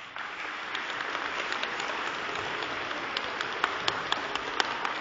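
Crowd applauding. It starts suddenly and carries on steadily, with sharp single claps standing out from the mass.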